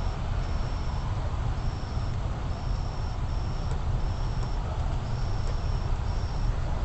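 Steady low rumble and hiss from a wireless surveillance camera's outdoor microphone, with a faint high-pitched pulse repeating about once a second.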